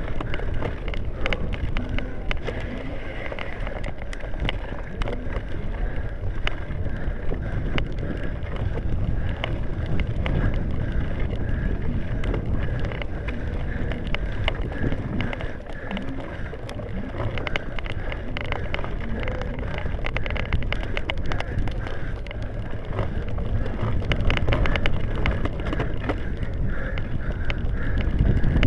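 Bicycle ridden over bumpy grass, heard from a camera carried on it: a steady rumble of wind on the microphone and tyres, broken by frequent rattling clicks and knocks.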